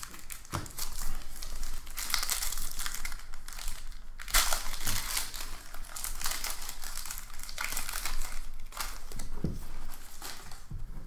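Shiny foil wrapper of an NFL trading card pack crinkling as it is handled and opened by hand, with louder bursts of crinkling at about two, four and nine seconds in.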